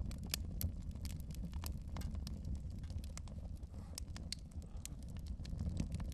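Steady low rumble with irregular sharp crackles and clicks scattered through it.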